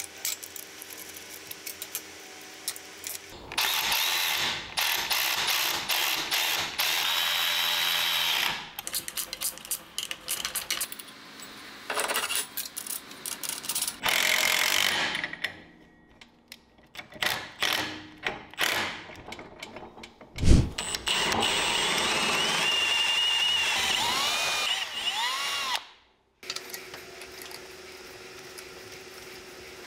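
Milwaukee M12 Fuel cordless power tool running in several bursts of a few seconds each, driving bolts home, one of them the bolt of a CVT drive pulley. Clicks and clatter of hand tools and parts come between the bursts, with one sharp loud click about two-thirds of the way in.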